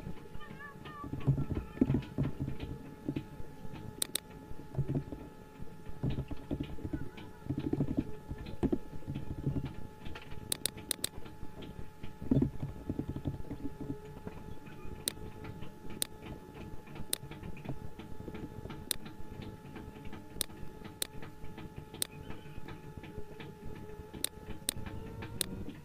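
Computer keyboard typing and mouse clicking, in irregular clusters of taps through the first half and then single sharp clicks about once a second, over a steady faint hum.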